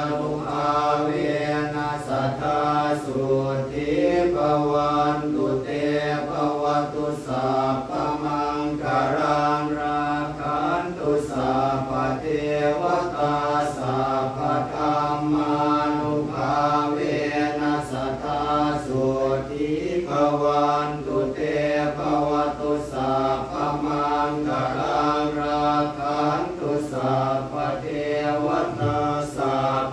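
Theravada Buddhist monks chanting Pali blessing verses in unison, a continuous, even drone of low voices without pauses.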